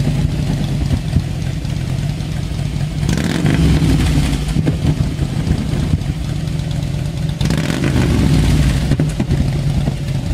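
Touring motorcycle with a flamethrower exhaust kit idling and being revved twice, about three seconds in and again about seven and a half seconds in.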